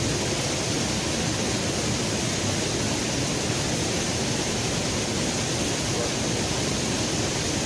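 River in flood after rain, muddy water pouring over a small waterfall and rapids close by: a steady, unbroken rush of water.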